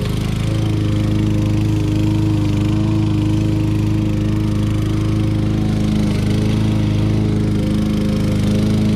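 Repowered Tecumseh LV195EA 6.5 hp four-stroke engine on a 1994 Lawn-Boy 10310 push mower, running steadily while mowing, with only slight wavers in pitch.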